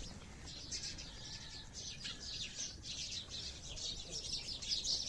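Small birds chirping continuously, many short high chirps in quick succession that grow denser and louder in the second half.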